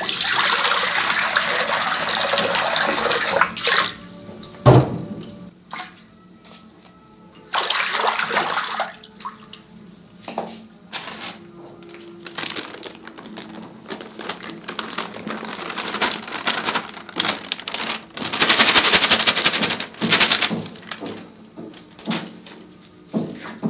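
Water poured from a plastic scoop splashing into a large metal wok, a rushing pour of about three and a half seconds, followed by a sharp thud about five seconds in. Further pours come about eight and nineteen seconds in, with light knocks and clicks between them.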